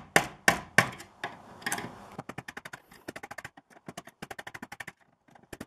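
Hammer tapping the conduit locknut tight inside the charging station's enclosure: several sharp knocks about a third of a second apart, then from about two seconds in fast runs of light taps, roughly ten a second, with short pauses between.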